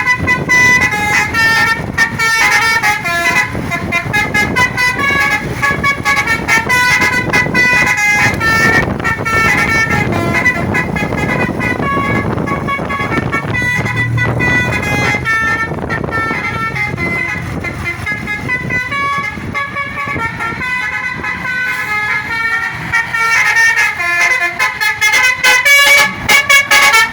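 Bus telolet horn playing a quick multi-note tune over and over, its pitch stepping up and down, over the engine and road noise of traffic underway.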